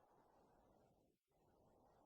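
Near silence: a gap between sound effects.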